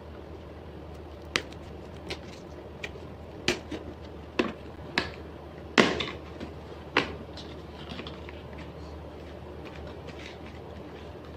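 Hands handling a cardboard camera box as it is opened: a series of sharp taps, clicks and scrapes from the outer sleeve being pried open and the inner box slid out, the loudest about six seconds in, with quieter rustling toward the end. A steady low hum runs underneath.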